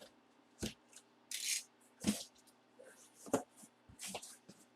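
Hands opening and handling a cardboard box: a handful of separate knocks, scrapes and rustles, with short quiet gaps between them.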